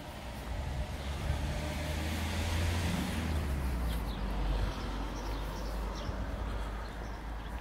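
A motor vehicle passing by: a rumble with tyre hiss that swells to a peak a few seconds in and then fades.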